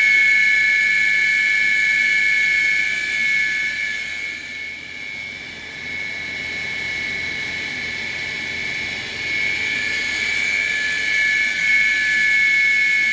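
Live-tool drive in the turret of a Samsung SL2500BY CNC lathe spinning steadily at its maximum 5,000 RPM at 24% load: a steady high whine. The whine dips in loudness for a few seconds midway, then comes back up.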